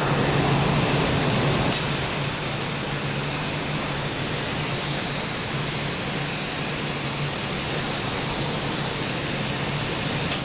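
HOMAG CNC woodworking machining center running: a steady rushing noise over a low hum, dropping a little in level about two seconds in.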